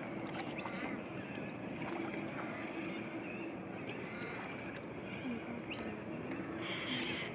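Canoe on the water: a steady, moderate background of water and paddle noise, with a brief higher-pitched sound near the end.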